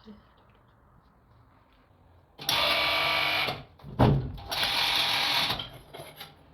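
Electric motor of an electromechanical pipe bender running in two short runs of about a second each, with a heavy thud between them.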